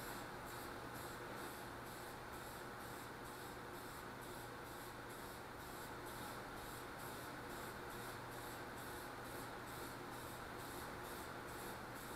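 Aerosol spray-paint can spraying, a soft hiss that pulses about three times a second as it is applied in quick passes for a final coat.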